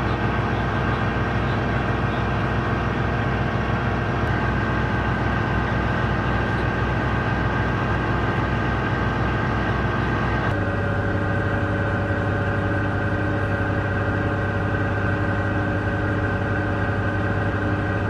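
Diesel engines of a Navy landing craft utility (LCU) running steadily under way, a loud low drone with a deep hum. The hum's pitch pattern changes abruptly about ten seconds in.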